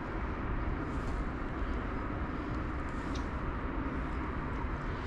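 Steady low rumble of wind blowing across the microphone outdoors, with a few faint ticks.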